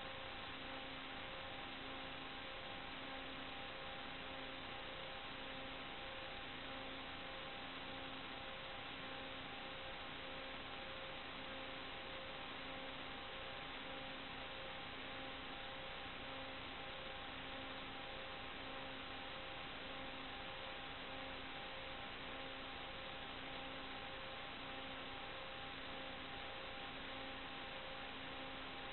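Steady electronic hiss with faint constant hum tones, and a low tone pulsing on and off about once a second: noise on the video link's audio channel rather than any sound from the scene.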